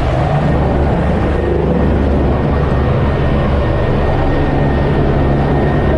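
Helicopter engine and rotor running, a steady, loud noise with a strong low hum, heard from the open cabin door.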